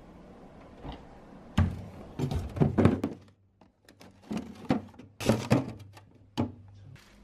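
Hard objects being handled and set down: a run of irregular knocks and clacks over a low steady hum, with a short quiet gap midway.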